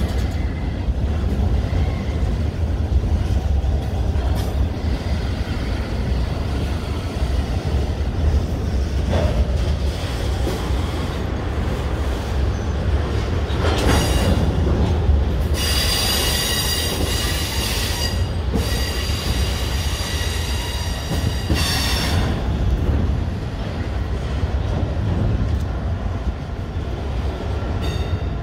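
Freight train of autorack cars rolling past with a steady low rumble. Around the middle, the wheels squeal in several high, ringing stretches lasting a few seconds each.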